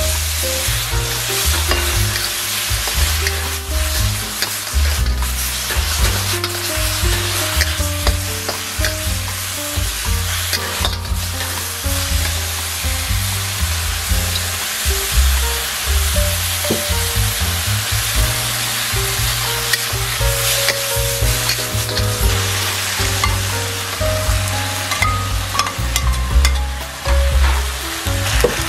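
Beef and mixed vegetables sizzling in a hot wok as sauce cooks in, with the scrape and clatter of a metal wok spatula stirring and tossing the food.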